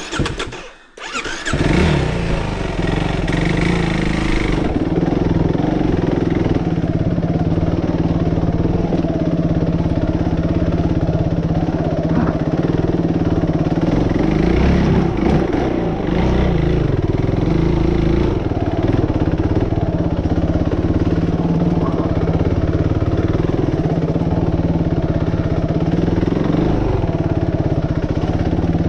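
Suzuki RMX450Z single-cylinder four-stroke dirt bike engine coming in loud about a second and a half in, then running at low, mostly steady revs with a few small rises and falls of the throttle.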